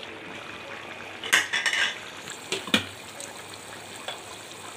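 Beef and potato curry boiling in a pan, a steady bubbling, while a spoon stirs it and clinks against the pan a few times, loudest about a second and a half in and again near three seconds in.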